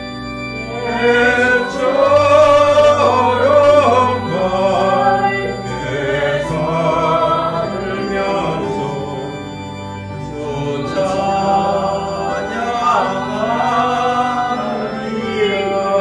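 Voices singing a Korean hymn in unison over a steady organ accompaniment, going through the last lines of the final verse.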